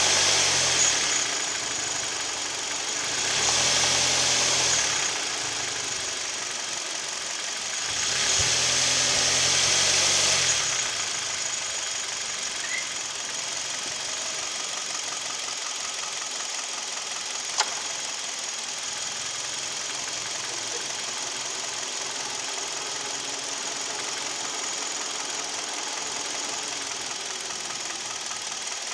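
Hyundai/Kia G4KD 2.0-litre Theta II inline-four running with a knock, which the owner takes for piston knock. It swells louder three times in the first ten seconds, then runs steadily, with one sharp click about two-thirds through.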